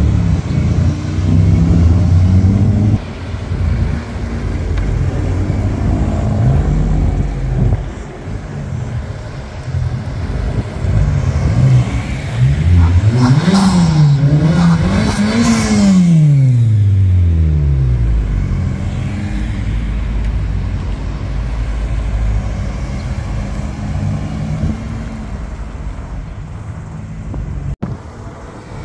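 Honda Civic Type R's turbocharged four-cylinder engine running under way with road noise. About halfway through, it revs up, dips sharply at an upshift, revs up again and then falls away steadily as the car goes past, with the tyre and road noise swelling and fading.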